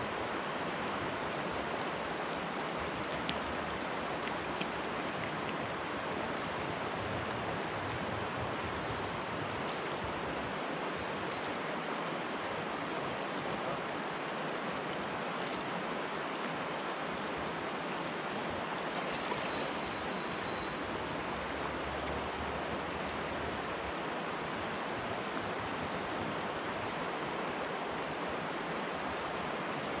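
Steady rush of a shallow river flowing over rocks and riffles, with a couple of faint clicks a few seconds in.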